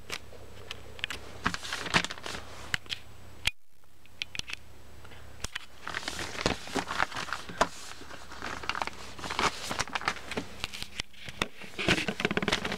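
Thin plastic shopping bag crinkling and crackling as it is handled, in irregular bursts that grow busier from about six seconds in.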